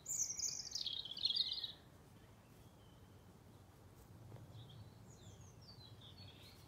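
A small songbird singing: a quick run of high chirping notes in the first two seconds, then a fainter phrase of notes falling in pitch about four and a half seconds in.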